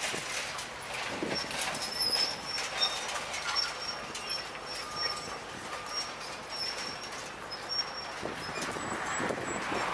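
Scrap steel and rebar clanking and scraping under an excavator's demolition attachment, a steady run of sharp metallic knocks with brief high squeaks throughout.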